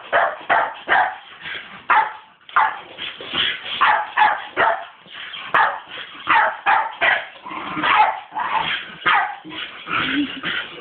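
Staffordshire bull terrier barking over and over in quick, irregular barks, two or three a second, with a brief lull near the middle.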